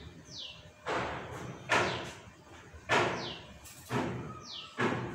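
Four loud bangs, sharp at the start and dying away over about half a second each. Between them, a bird repeats a short falling whistle.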